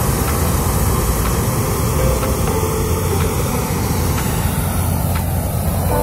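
Loud, steady rushing roar of the equipment inflating a hot air balloon, with a strong low rumble underneath.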